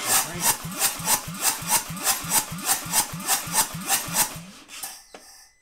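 Harley-Davidson Milwaukee-Eight V-twin turning over on the electric starter, with even rasping strokes about four a second. The fuel pump is unplugged, so this is the fuel system being purged of pressure before the fuel line comes off. The strokes weaken and die away about a second before the end.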